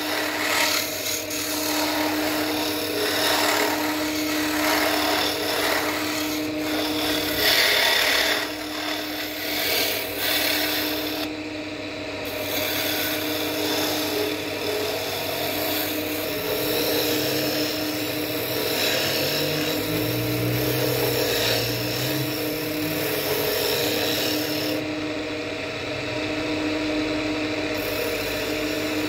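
Wood lathe running with a steady motor hum while a hand tool works the spinning wood, giving a rough scraping noise that swells and eases unevenly.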